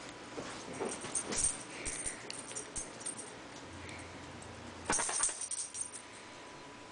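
Scuffling and rustling on bed covers as a dog and a pet rat tussle. One stretch runs through the first three seconds, and a shorter, louder bout comes about five seconds in.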